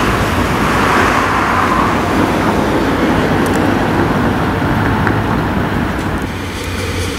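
Road traffic: cars driving along the street in a steady rush of tyre and engine noise, swelling about a second in. Near the end the rush thins and a low hum comes in.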